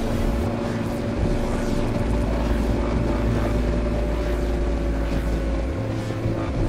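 Adventure motorcycle engine running at a steady cruising speed, heard from the rider's seat along with wind and road noise.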